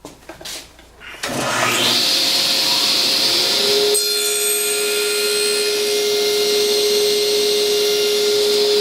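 Table saw switched on about a second in: the motor winds up to speed with a rising whine, then runs steadily at full speed.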